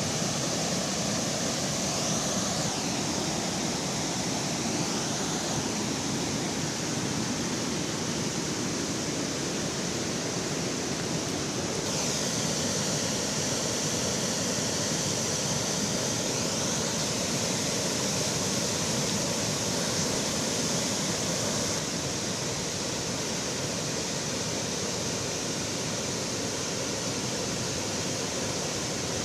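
Waterfall on a river in spate: a steady, dense rush of falling water.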